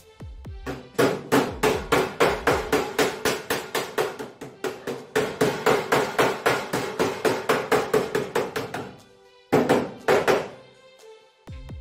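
Hammer blows on sheet-metal roof flashing, struck rapidly at about four a second for several seconds, then a short pause and a few final blows, over background music.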